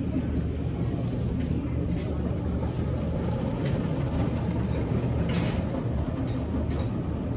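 Airport terminal ambience: a steady low hum with a faint murmur of distant voices, a few light clicks, and a short hiss about five seconds in.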